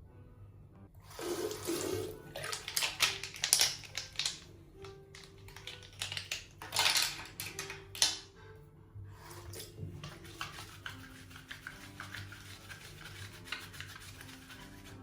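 Water running from a tap and splashing as makeup brushes are rinsed under it. It comes in irregular loud bursts for the first half, then runs softer and steadier.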